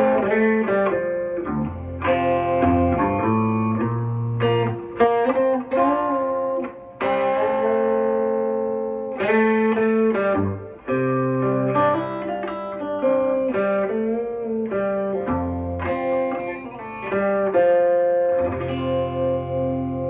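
Electric guitar played through a Fender Tone Master Deluxe Reverb amplifier driving an Eminence Alessandro 12-inch speaker in a vintage Deluxe Reverb cabinet: picked chords and single-note lines over bass notes, with a few notes bent.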